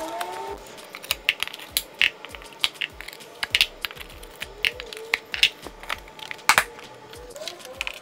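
Background music over a rapid, irregular run of sharp clicks and knocks from baseboards being worked back into place, with one loud knock about six and a half seconds in.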